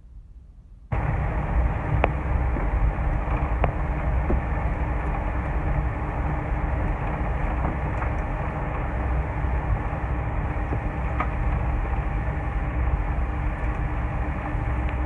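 Steady rumble inside the cabin of a Boeing 747-400 rolling on the ground after landing, with a faint steady tone and a few light rattling clicks. It comes in suddenly about a second in.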